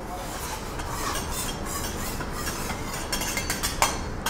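Steady rumble and hiss of restaurant background noise, with a few light clicks near the end.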